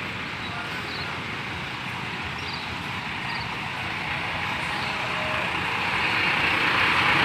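Steady traffic and vehicle engine noise that grows gradually louder.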